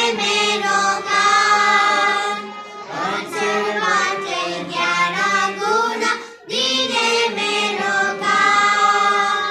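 Four young schoolgirls singing a song together in unison, with a brief pause for breath about six seconds in.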